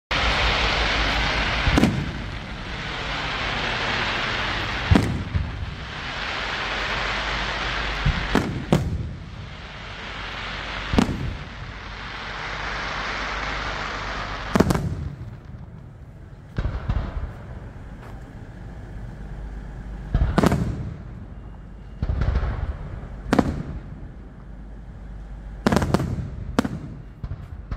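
Fireworks display: aerial shells bursting with sharp bangs every few seconds. A steady hiss lies under the bangs in the first half and fades about halfway through, leaving single bangs and a quick run of three near the end.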